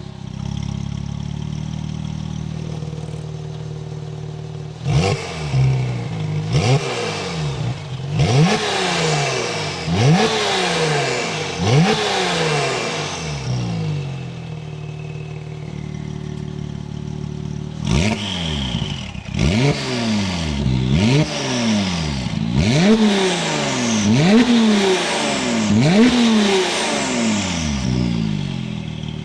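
Porsche 996 Turbo twin-turbo flat-six idling through a SOUL valved, high-flow catted exhaust with sport headers, then blipped to rev repeatedly in two runs of quick rises and falls, settling back to a steady idle between them and at the end.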